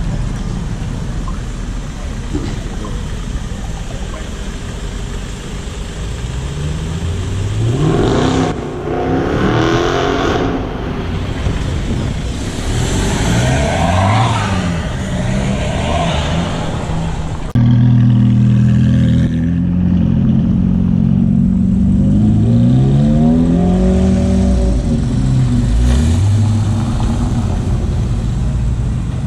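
Several cars accelerating away one after another, their engines revving up in a series of rising pitches as they pull off. Just past halfway a louder engine cuts in suddenly and revs up through several rising sweeps.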